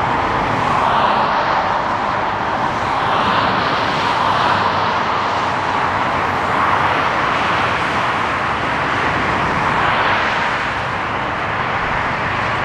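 Motorway traffic passing at speed: a steady rush of tyre and engine noise that swells and fades every few seconds as vehicles go by.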